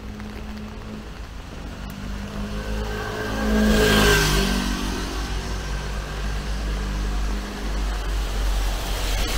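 Road traffic on a wet city street: a motor vehicle passes close about four seconds in, its tyres hissing on the wet road and its engine note falling as it goes by, over a steady low traffic rumble. Another vehicle draws near toward the end.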